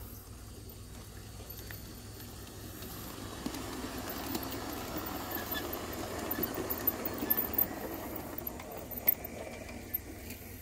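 Garden-railway model train's boxcars rolling past on brass track: a rising rumble of wheels on rail with scattered sharp clicks, building up about three seconds in and fading away near the end.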